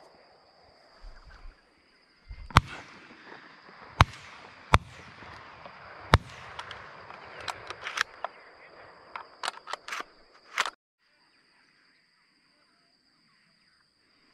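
Four loud shotgun blasts, each with a short ringing tail, spread over about three and a half seconds, followed by a run of fainter sharp cracks. The sound cuts off abruptly about eleven seconds in.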